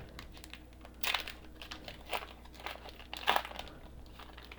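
Foil wrapper of a Pokémon TCG booster pack being torn open and crinkled by hand, with two louder tears or crinkles, about a second in and just over three seconds in.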